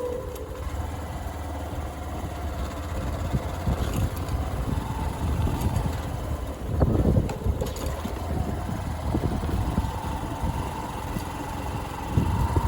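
Motorcycle engine running during an off-road ride, a steady low rumble mixed with road noise, with a couple of louder knocks about seven seconds in and near the end.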